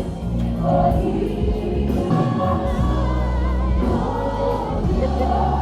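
Music with several voices singing together over a steady low bass.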